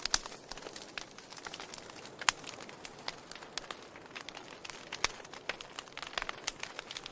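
Wood fire burning, crackling with irregular sharp pops over a faint hiss, a few louder snaps standing out.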